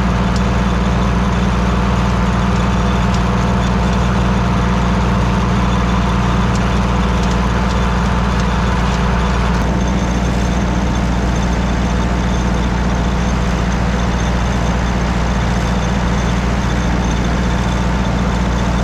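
An engine running steadily with a constant low hum; the hiss above it shifts about ten seconds in.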